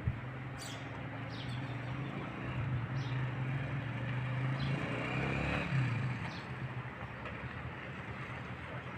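Car engine running steadily with street noise around it, swelling louder about five to six seconds in before settling back.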